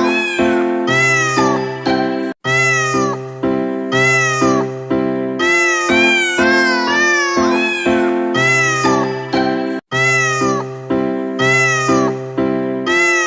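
Music made from cat meows: a quick run of pitched, arching meows, about two a second, set as a melody over steady held chords. The track cuts out for an instant twice, about seven and a half seconds apart.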